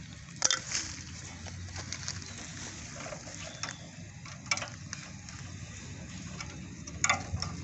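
Metal knocks and clanks of a wheel being handled and fitted onto a mini tiller's axle. There are three sharper knocks a few seconds apart and a few lighter clicks between them, over a low steady background.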